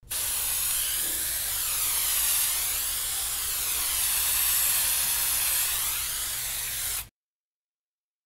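Cartoon spray-painting sound effect: a steady hiss of paint spray with a slowly sweeping, wavering tone. It cuts off suddenly about seven seconds in.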